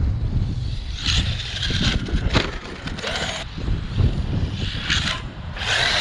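Strong wind buffeting the microphone, a steady low rumble, broken by several short bursts of higher whine and hiss from the Arrma Kraton 6S brushless RC monster truck's motor and tyres as it accelerates. One burst a little past halfway rises briefly in pitch.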